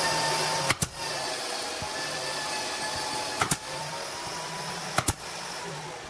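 Pneumatic nail gun firing three times into pine boards, each shot a quick double crack. A steady machine drone runs underneath and fades out near the end.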